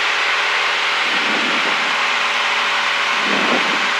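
Cessna 172's engine and propeller running steadily in cruise, heard inside the cabin as an even drone with a steady hum of engine tones under a wash of air noise.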